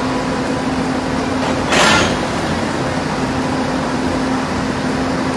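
Steady rain noise with a low mechanical hum at a railway track beside a locomotive and coach, and a brief loud hiss about two seconds in.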